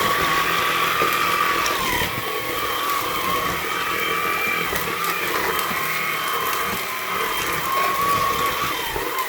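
Hoover OnePwr Blade cordless stick vacuum running on a hard floor, its motor giving a steady high whine that dips briefly in pitch a few times, with the brush bar turned down to its slower hard-floor speed.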